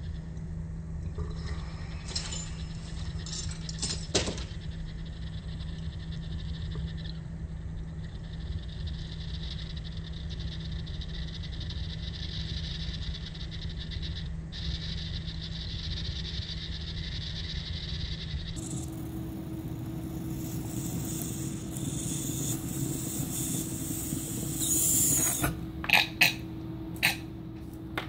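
Steady hiss of a hit being drawn through a water rig while hash melts and bubbles away on its mesh screen, with a few sharp clicks near the end.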